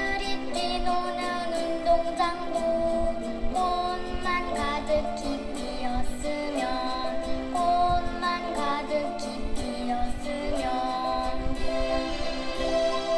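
A Korean children's song, a voice singing the melody over instrumental accompaniment, moving from note to note at an even pace.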